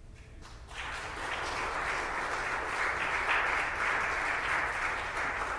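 Audience applauding: a few scattered claps, then applause swelling about a second in and holding.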